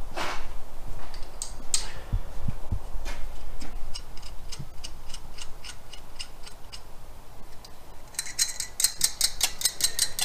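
Hand ratchet clicking in short runs as a 7/16 nut is run down onto a carburetor stud, about four clicks a second at first, then a faster, louder run near the end, with a few dull knocks of the tool early on.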